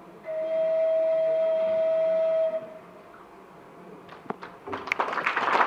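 A flute holds one long steady note that stops about two and a half seconds in, the final note of the tune. After a short pause, an audience starts clapping, a few claps at first and then applause building toward the end.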